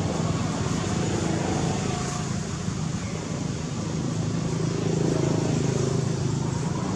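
A motor vehicle engine running with a steady low hum that swells a little about five seconds in.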